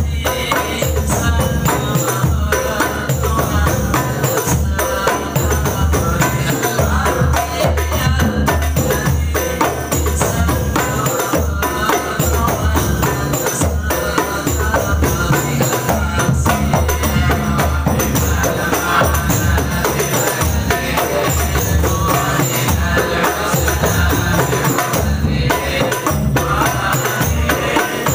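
Hadroh ensemble playing Indonesian Islamic devotional music: rebana frame drums and large hadroh bass drums beat a steady, busy rhythm under male voices singing a syair in unison.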